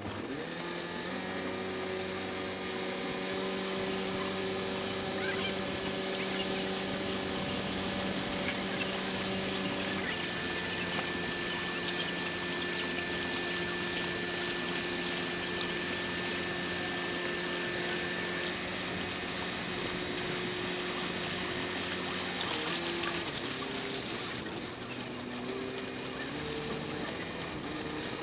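Balboa Island ferry's engine running steadily, a held hum that shifts pitch a few times, over water noise, all sped up four times.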